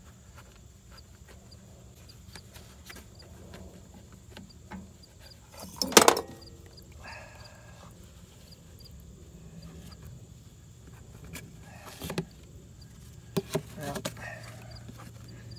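Metal tools and the oil filter clinking and knocking as the spin-on oil filter of an air-cooled standby generator engine is taken off, with one sharp clatter about six seconds in and a few lighter knocks near the end, over a low steady hum.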